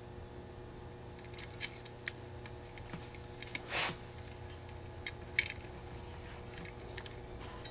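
A few scattered light metallic clicks and one short scrape: small tools and parts being handled as a horseshoe retaining clip is squeezed onto the accelerator pump linkage of a Rochester 2G carburetor. A steady low hum runs underneath.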